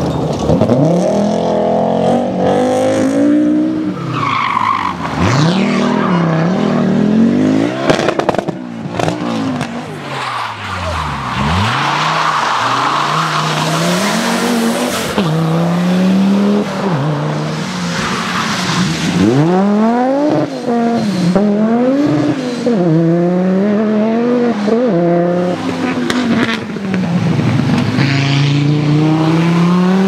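Audi quattro rally cars' turbocharged five-cylinder engines revving hard, the pitch climbing and dropping sharply again and again through gear changes, with tyre and gravel noise under them.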